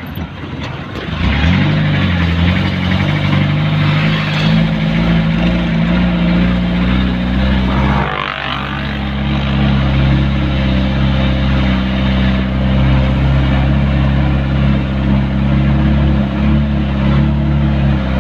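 Vehicle engine running while driving, heard from inside the cab over road noise. The engine note rises about a second in and then holds steady. It breaks off briefly about eight seconds in, picks up again, and drops away right at the end.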